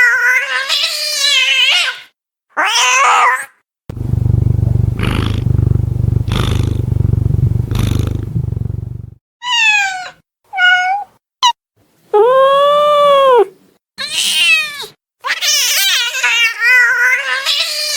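A frightened domestic cat: long wavering yowls, then a low steady growl of about five seconds broken by short breathy bursts. After that come a few short falling meows, one long meow that rises and falls, and more drawn-out wavering yowls near the end.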